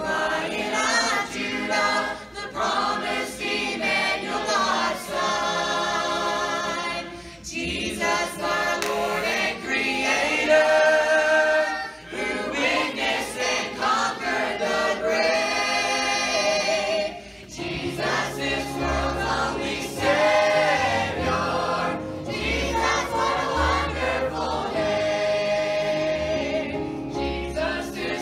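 Choir of children and adults singing together, with low bass notes joining about two-thirds of the way through.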